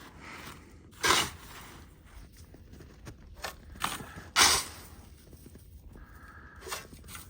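Crunching and scraping of a person moving about in snow, in short irregular bursts, the loudest about a second in and around four and a half seconds in, with small ticks between.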